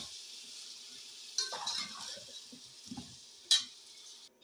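Potatoes and tomatoes sizzling in hot oil in a metal pot while being stirred with a slotted metal spoon, which scrapes and clinks against the pot. A sharp clink about three and a half seconds in is the loudest sound, and everything cuts off just before the end.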